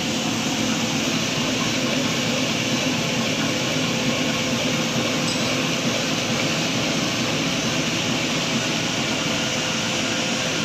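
Double-deck automatic serviette tissue folding machine running at production speed: a steady, even mechanical whir and hiss with a low hum underneath.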